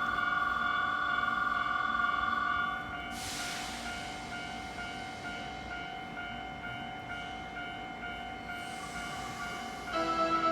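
Electronic warning tones at a station level crossing as a train departs. A loud steady tone drops about three seconds in, with a burst of air hiss, to a quieter tone pulsing a few times a second. A station chime begins near the end.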